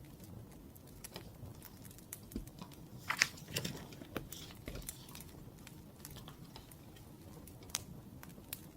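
Wood fire crackling, with scattered sharp pops and a denser run of crackles about three to five seconds in.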